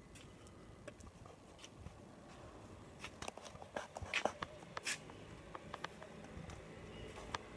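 Faint scattered clicks and taps over a quiet street background, clustering in the middle seconds.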